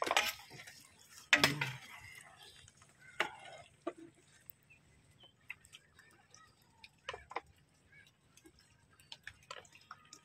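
Two short louder sounds come at the very start and about a second and a half in. Scattered light clicks and taps follow through the rest.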